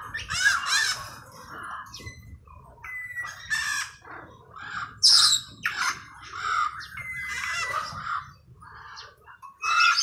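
Parrots calling in an aviary: a run of short squawks and chattering calls, with a couple of held whistled notes about three and seven seconds in.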